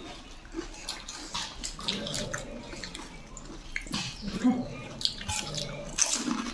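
Pani puri being eaten: crisp, hollow puris filled with spiced water crunched and slurped, in a run of short wet crackles and clicks.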